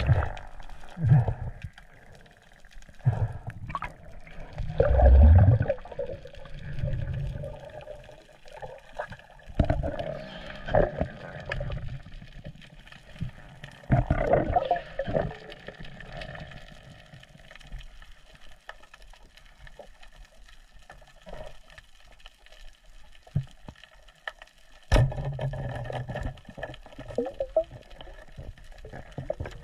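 Underwater water noise around an action camera on a freediving spearfisher: irregular splashing and gurgling as he dives onto the reef, then one sharp snap near the end as the speargun fires into a fish, followed by a short burst of commotion.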